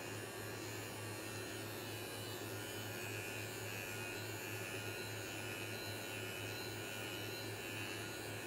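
Electric facial cleansing brush running against the skin, a low, steady hum.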